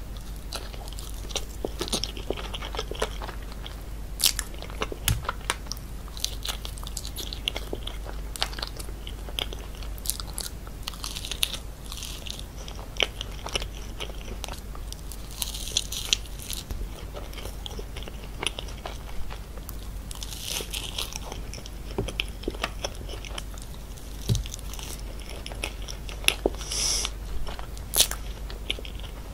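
Biting into and chewing a chocolate-coated layered mousse cake, with light crunches and crackles and many short, wet mouth clicks.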